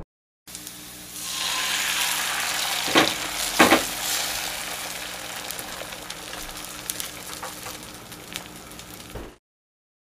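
Eggs frying in a hot pan: a steady sizzle full of small crackles and spits, with two louder pops about three seconds in. The sizzle slowly dies down and then cuts off near the end.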